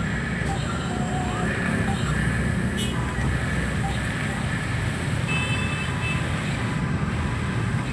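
Steady low rumble like road traffic or vehicle noise, with faint scattered short tones above it and a brief click about three seconds in.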